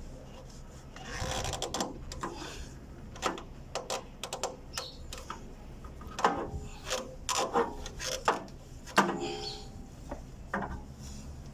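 Irregular clicks, knocks and scraping of hands and tools on a diesel engine's fuel system as the fuel water separator is loosened and removed, over a low steady hum.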